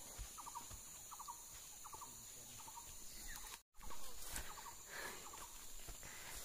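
Faint, repeated short pulsed calls of a wild animal, about one every two-thirds of a second, over a quiet forest background. The sound breaks off for a moment a little past halfway through.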